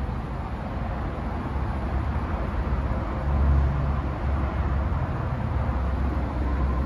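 Porsche 718 Boxster S's 2.5-litre turbocharged flat-four idling, heard from inside the cabin as a steady low rumble that swells briefly about three and a half seconds in.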